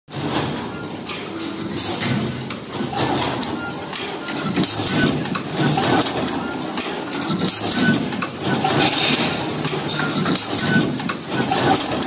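Automatic cable crimping and heat-shrink tube insertion machine running: repeated mechanical clacks and knocks over a steady machine noise, with a high whine through the first half.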